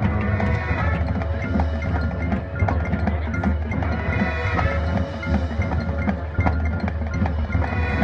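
Marching band playing, with the front ensemble's mallet percussion (marimba and bells) to the fore: a run of quick struck notes over low sustained tones.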